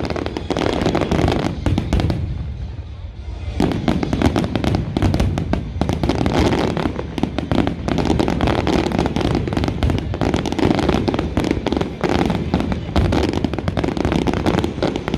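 Fireworks display: dense, rapid bursts and crackles going off one over another, easing briefly about two seconds in and then resuming.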